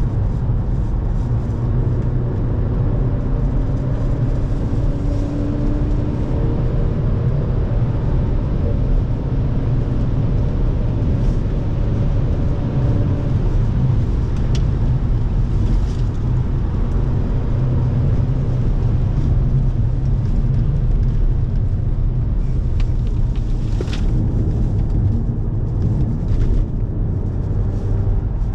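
Audi car driven hard on a race track, heard from inside the cabin: a steady loud mix of engine and tyre-and-road rumble, with the engine note rising under acceleration a few seconds in.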